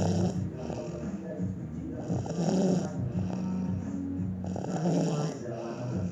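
A person snoring, each noisy breath coming about every two and a half seconds over a low, steady drone.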